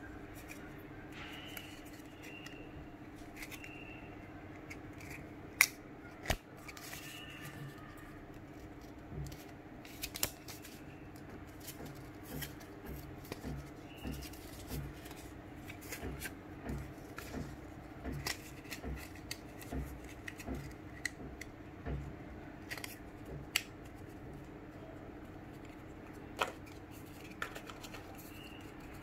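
Small clicks, taps and soft knocks as the phone box's cardboard tray and accessories are handled on a desk, over a steady low hum. There are a few sharp clicks about 6 seconds in and near the end, and a run of soft knocks in the middle.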